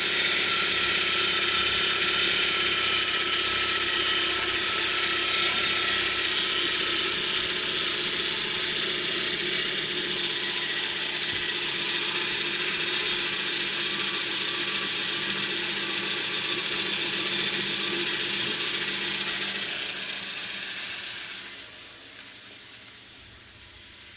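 Unexplained mechanical noise from a Tata Bolt car: a steady whir with a fine rattling texture and several steady tones. It dies away about 21 seconds in.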